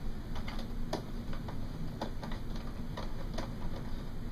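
Irregular light clicks and taps, a dozen or more, from hands and a small screwdriver working at an iMac's memory access door and its screw.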